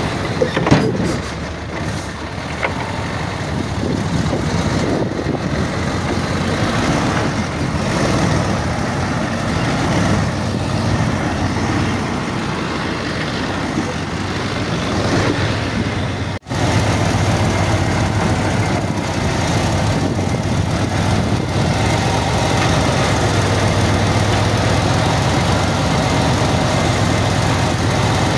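Heavy diesel engine of earthmoving machinery running steadily, with a brief dropout a little past halfway.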